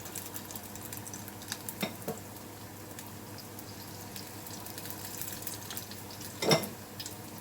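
Battered fish chunks deep frying in hot vegetable oil: a steady sizzle with scattered small pops, and one louder knock about six and a half seconds in.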